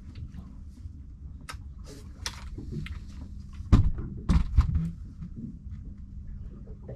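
Clicks and knocks of fishing tackle being handled on a small boat as a mackerel rod is lifted and its line pulled up by hand, with two heavy thumps about four seconds in over a low rumble.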